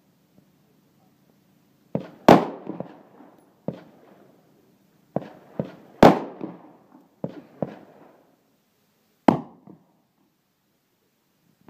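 Handgun shots fired on an outdoor range: about ten sharp reports, unevenly spaced, each with a short echo trailing off. The loudest come about two and six seconds in.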